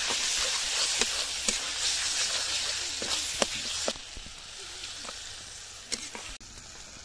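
Masala paste sizzling hard in hot oil in a steel kadai, with the spatula scraping and knocking against the pan. About four seconds in the sizzle drops to a softer hiss as watery liquid goes into the pan.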